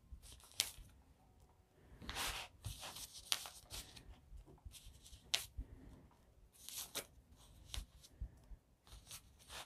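Clear water-soluble embroidery stabilizer film crinkling and tearing in faint, irregular bursts as it is pulled away from machine-embroidered lettering.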